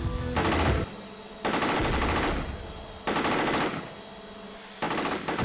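Automatic gunfire in four short bursts of rapid shots with brief pauses between them, from a machine gun mounted on a drone.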